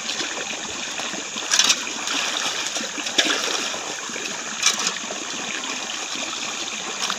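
Shallow stream of water running steadily, with hands sloshing fish and water in an aluminium pot and several sharper splashes as rinse water is tipped out.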